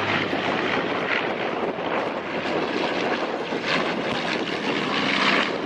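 Propeller-driven airplane in flight, its engine noise steady throughout.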